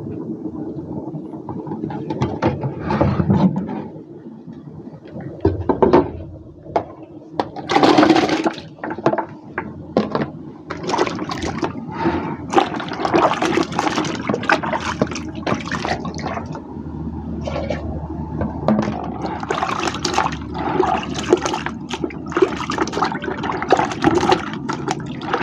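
Hands sloshing and splashing vegetables (green onions, carrots, tomatoes, potatoes) in a plastic bucket of water, in irregular splashes with water running off. For the first few seconds, before that, a knife cuts potatoes into a plastic tub.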